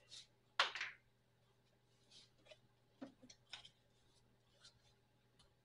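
Faint clicks and crackles from a plastic antifreeze jug being handled as its cap is worked open, with one louder crackle about half a second in and a few smaller clicks after. A steady low hum sits underneath.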